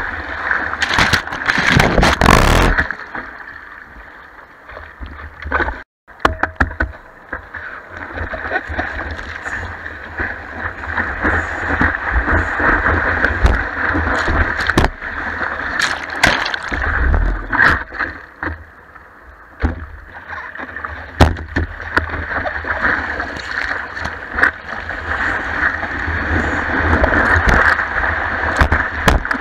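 Broken surf rushing and splashing over a surfboard-mounted camera as the board rides through white water, with sharp spatters of spray hitting it. Loudest in the first few seconds, the sound cuts out briefly about six seconds in and then builds again into a steady rush.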